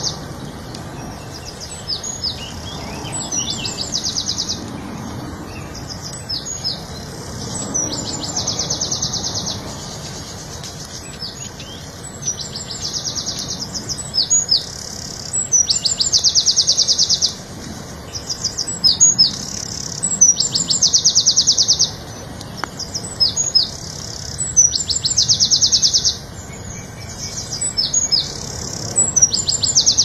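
A small songbird singing the same phrase over and over, every two to three seconds: a few sharp, high down-sliding notes, then a fast, even high trill about a second long. A steady low background noise runs underneath.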